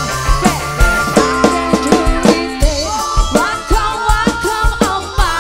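Live dangdut band music with a driving, uneven drum pattern under a melody of bending, wavering notes, played loud through the stage sound system.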